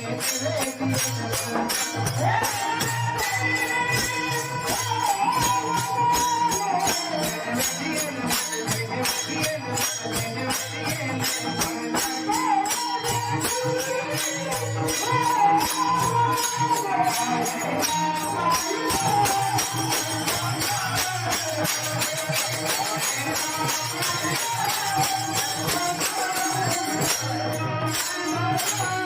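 Devotional chant singing: a voice carries a wavering melody over a fast, steady jingling percussion rhythm and low held notes.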